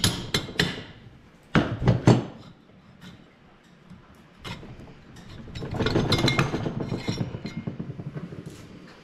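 Mallet knocking on a two-stroke snowmobile engine's cylinder to break it loose: a few quick taps, then two heavier blows about 1.5 and 2 seconds in. From about five and a half seconds in, a longer run of metal clinking and rattling as the cylinder is worked up off its studs and piston.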